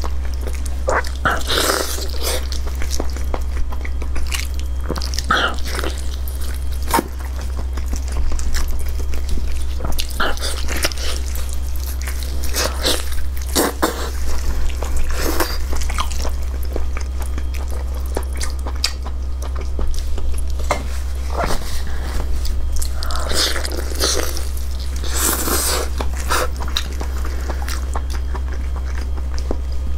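Close-miked biting and chewing of spicy braised honeycomb beef tripe in chili oil: irregular wet mouth smacks and squelches, over a steady low hum.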